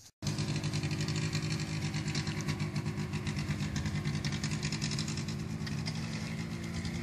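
Small utility vehicle's engine idling steadily with a fast, even beat, coming in abruptly a moment after the start.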